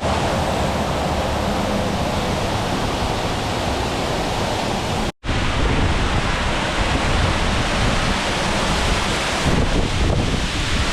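Steady rushing of a waterfall heard close up, with an uneven low rumble that may be some wind on the microphone. The sound cuts out for a moment about five seconds in.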